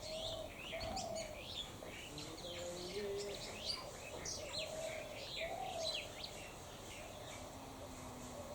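Several birds chirping with quick, overlapping high calls throughout, and a lower wavering call repeating every second or two underneath.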